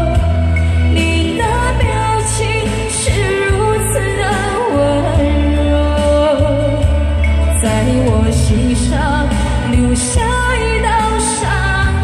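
A woman singing a Chinese pop song into a microphone over a karaoke backing track with a steady bass beat.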